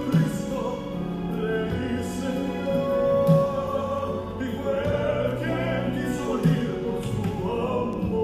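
Slow music of a sung church song: sustained accompaniment with a deep note struck about every three seconds.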